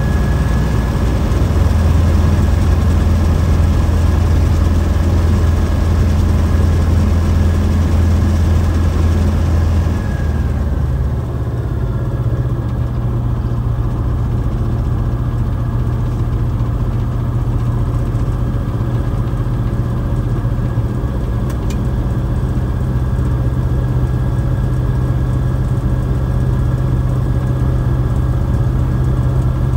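Light aircraft's piston engine and propeller running at low power on the ground, a steady drone heard from inside the cockpit. About ten seconds in, the engine note steps up to a slightly higher pitch and the hiss above it quietens.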